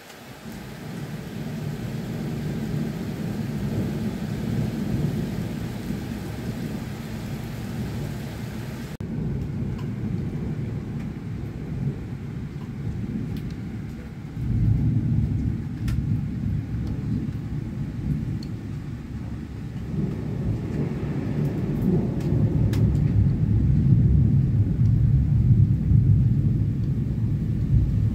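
Thunder rolling in long, low rumbles during night rain. A fresh roll comes in about halfway and the loudest builds near the end, over a faint hiss of rain with a few sharp drip ticks.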